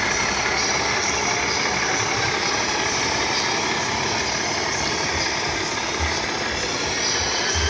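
Diesel truck engine idling steadily with a low, even throb.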